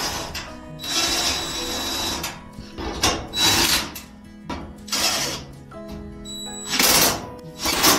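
Power drill-driver tightening the screws of a dryer's top cover in about six short bursts, one lasting about a second. Background music plays underneath.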